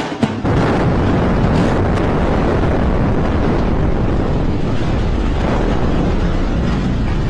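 Controlled explosive demolition of a multi-storey building: a few sharp cracks from the blasting charges in the first seconds, then a loud continuous rumble as the structure collapses.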